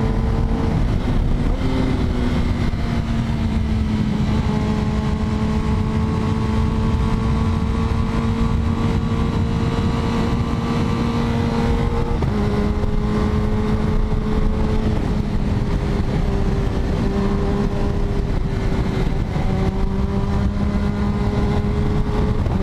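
Kawasaki Ninja ZX-10R's inline-four engine running at fairly steady revs while riding, its pitch stepping slightly a couple of times, about a second and a half in and near the middle, and wavering a little towards the end.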